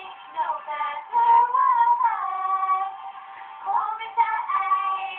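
Female voices singing a song, holding long notes with slides in pitch, through a muffled, thin-sounding recording.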